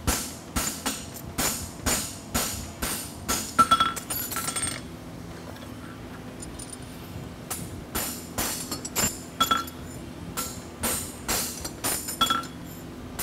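Hand hammer striking a steel horseshoe on an anvil: a series of sharp, ringing metallic blows at an irregular pace of about two a second, with a pause of a couple of seconds midway.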